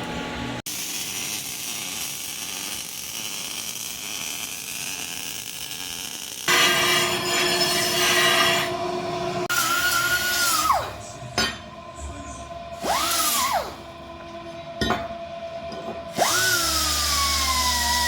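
Handheld power tool working the steel engine mounts: a steady run, a louder stretch, then several short bursts, each rising sharply in pitch and falling away slowly as the motor spins down.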